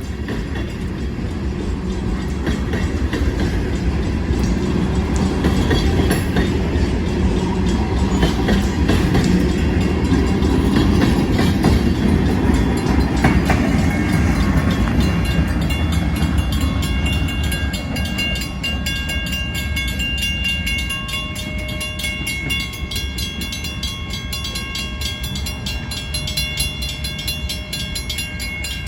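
Union Pacific freight train of gondola cars rolling past, a heavy rumble with wheels clacking over the rail joints, loudest about a third of the way in. About halfway through, steady high metallic ringing tones come in over the easing rumble.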